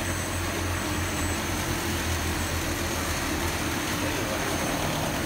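Automatic bottle-filling line with a multihead weigher running: a steady mechanical hum and whir with a constant low drone underneath.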